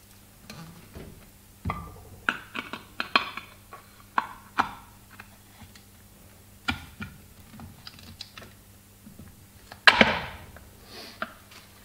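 Irregular clicks and light knocks of the metal casing parts of a Brose e-bike motor being handled and fitted together as the cover is seated onto the housing, with one louder knock about ten seconds in.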